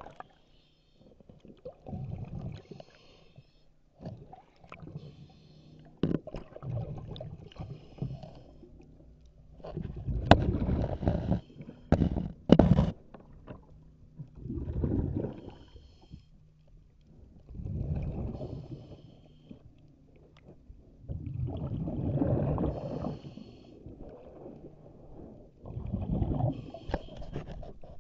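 Diver breathing through an underwater regulator: a hiss on each inhale and a rumbling gurgle of exhaled bubbles, repeating about every three to four seconds. A few sharp knocks come about halfway through.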